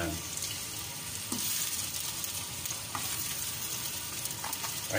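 Blue crabs frying in hot oil in a wok with garlic, ginger and onion: a steady sizzle. A few light knocks come through it.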